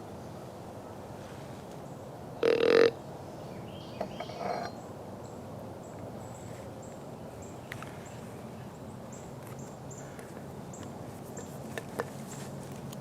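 A single short, loud grunt from a large animal about two and a half seconds in, followed a second later by a weaker, shorter grunt, then a few faint clicks.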